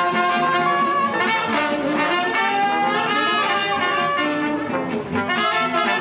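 Small street jazz band playing, with saxophones, trombone and trumpet together in long held notes over upright bass.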